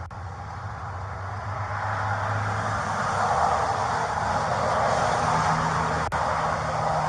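A car driving, with steady road and engine noise that grows louder over the first few seconds as it picks up speed, and a low engine hum. There is one sharp click about six seconds in.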